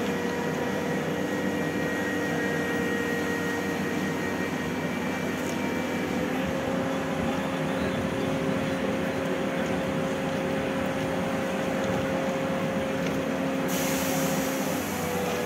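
Heavy crane's diesel engine running steadily under load while lifting a rail coach, its pitch stepping up slightly about six seconds in and dropping back near the end. A hiss joins near the end.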